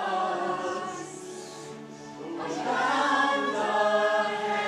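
A choir singing in harmony, holding long notes, swelling louder about halfway through.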